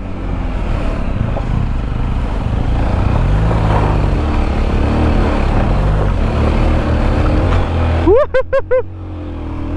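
Sinnis Terrain 125's small single-cylinder four-stroke engine pulling hard up a steep dirt climb. It revs up and down as the rear wheel spins and throws dirt. About eight seconds in, the engine sound drops away under a brief stuttering, higher-pitched burst, then picks back up.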